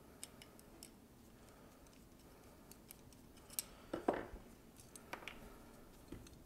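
Small steel parts of a French Charleville musket's flintlock being handled during disassembly: faint light metallic clicks and ticks, with a couple of sharper clinks about four seconds in as parts are set down on the workbench.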